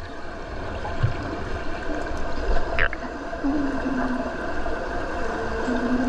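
Underwater pool sound picked up by a submerged camera: a steady, muffled rush of water, with a few short low hums in the second half.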